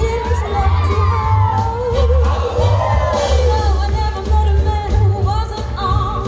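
Recorded show tune with a singer over instrumental backing and a steady pulsing bass beat, played loud for a dance routine.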